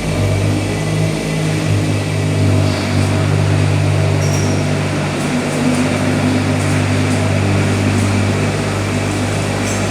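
Excavator diesel engine running at a steady speed.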